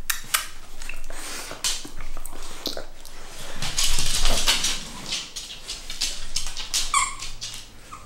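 A dog moving about close to the microphone, with rustling and scuffling noises, and giving a short, high whine near the end.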